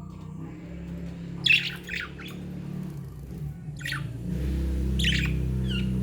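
Budgerigars squawking and chirping in short, sharp calls. The loudest squawk comes about a second and a half in, and quick falling chirps come near the end. A steady low hum runs underneath and gets louder in the second half.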